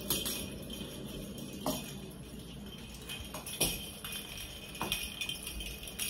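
Plastic cat-toy ball with a bell inside jingling as it rolls and is batted across a wooden floor by a kitten, with a few sharp clicks where it strikes the floor or is hit.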